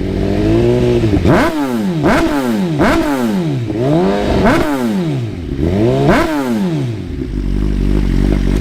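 Suzuki GSX-R 1000 inline-four through a Brock's Predator full titanium exhaust, revved in a string of quick throttle blips, each rising and falling back about every second. It settles to a steady idle near the end.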